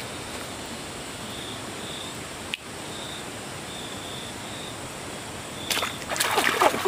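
Steady rush of running water with faint short chirps, then water splashing and sloshing from near the end, loudest at the very end.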